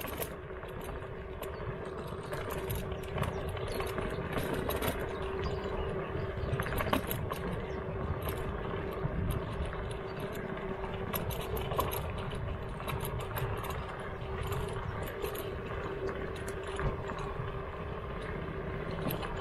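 Slidefox NT electric kick scooter riding over rough road: a steady motor whine over tyre and road rumble, with the deck rattling lightly now and then.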